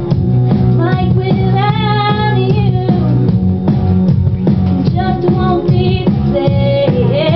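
A woman singing live into a handheld microphone over a loud band accompaniment with a steady beat, her voice holding and bending long sung notes.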